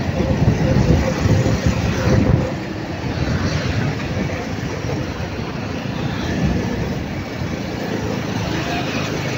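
Motorcycle riding along with wind buffeting the microphone: a heavy low buffeting that eases about two and a half seconds in, leaving a steadier rush of wind and engine.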